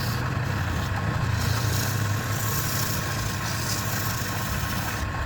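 A motor running steadily with a constant low hum and a faint high whine.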